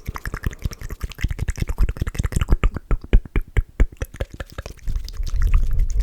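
Fast, wet mouth sounds close to the microphone: a rapid run of clicks and smacks, many to the second. A heavy low rumble builds near the end.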